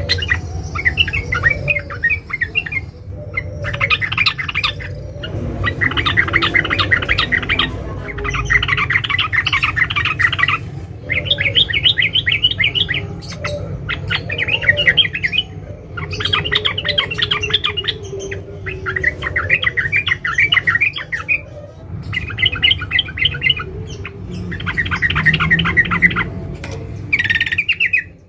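Yellow-vented bulbul (trucukan) giving fast, close-packed chattering calls in repeated bouts of one to two seconds with short pauses between; presented as a female's call to a male. The calling stops suddenly near the end.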